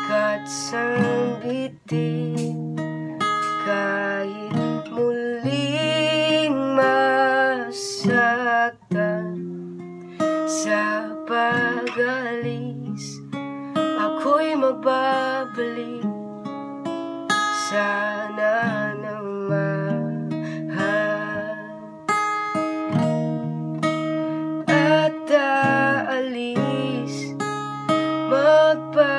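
A young man singing over his own strummed acoustic guitar, with long held notes that waver.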